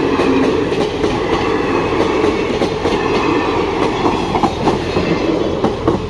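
Blue ICF passenger coaches of an Indian Railways express rolling past close by: a steady rumble with the wheels clattering over the rail joints. A few sharper clacks come as the last coaches pass near the end, and then the sound falls away.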